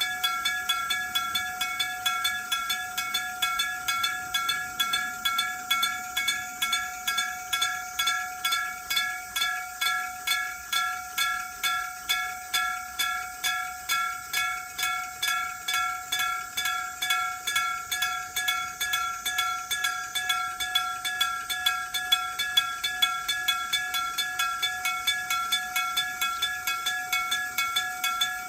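Electric bell of a Japanese railway level crossing ringing its warning continuously, a rapid, even run of metallic strikes on one steady ringing tone.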